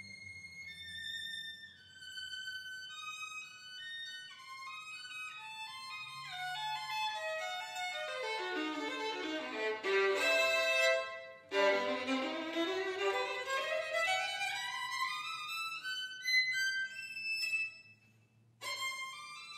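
Violin playing a fast virtuosic passage of scale runs. It sweeps down from high held notes to the low register about halfway through, climbs back up, and breaks off briefly near the end before a new high note.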